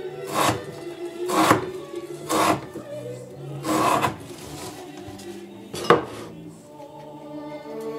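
Elmax-steel Skindu knife slicing through rope against a wooden board: five rasping cuts over about six seconds, the last one ending in a sharp knock. Background music plays underneath.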